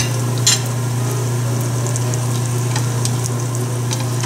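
Chicken egg roll deep-frying in a saucepan of hot vegetable oil: steady sizzling with scattered small pops, over a steady low hum. A short sharp knock sounds about half a second in.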